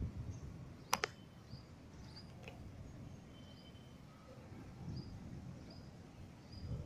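Faint outdoor ambience: small birds chirping repeatedly over a low rumble, with a sharp double click about a second in.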